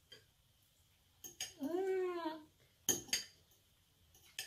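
Utensils clinking against a dish a few times, with a woman's short hum in the middle that rises then falls in pitch. Two sharper clinks follow close together about three seconds in.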